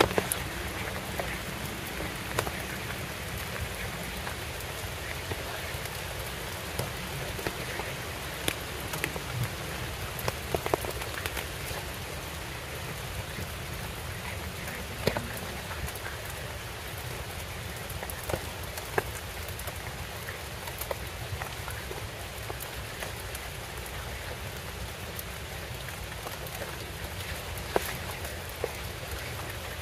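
Steady rain falling, an even hiss with irregular sharp ticks scattered through it.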